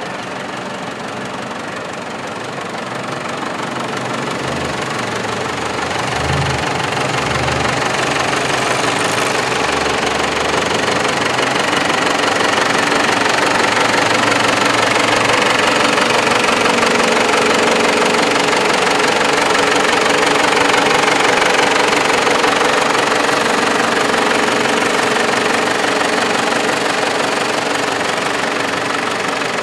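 Rat rod's engine running steadily, growing louder over the first half and easing off slightly near the end.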